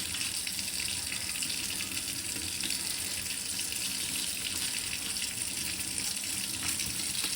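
Water tap running steadily into a sink, the stream splashing over a computer circuit board being rinsed under it.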